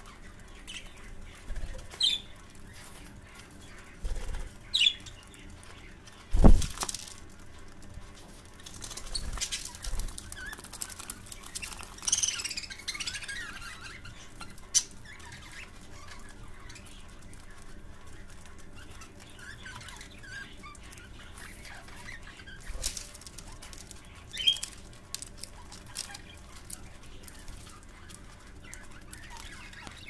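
Budgerigars giving short, scattered chirps and fluttering their wings as they jostle, with one loud sharp knock about six seconds in.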